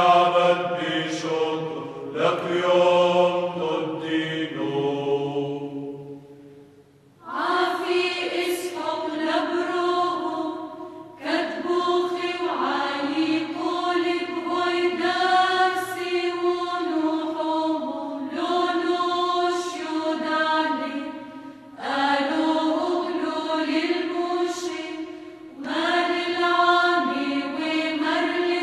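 Maronite incense hymn for the departed chanted in Syriac (Aramaic), in short regular verse phrases. After a brief pause about seven seconds in, the chant resumes at a higher pitch.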